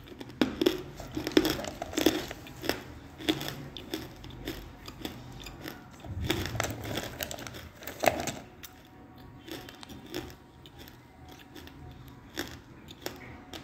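A woman biting and chewing a chunk of dry grey clay close to the microphone. The clay crunches in irregular sharp cracks, densest over the first eight seconds, then thinning to scattered crunches.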